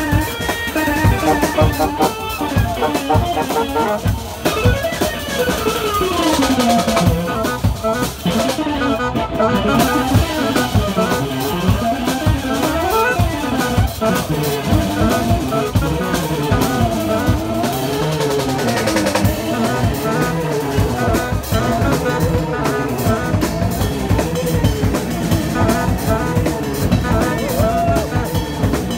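Live jazz-rock trio of alto saxophone, electric guitar and drum kit playing. Under a busy drum beat, a melodic line slides down about five seconds in, then turns into fast runs going up and down.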